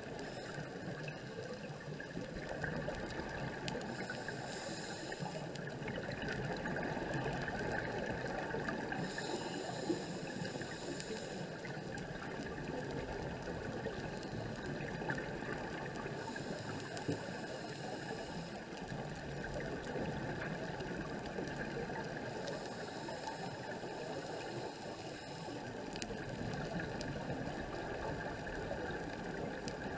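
Muffled underwater sound as heard by a diver's camera in its housing: a steady crackling hiss, with a diver's scuba regulator exhaling bubbles in bursts about every six seconds.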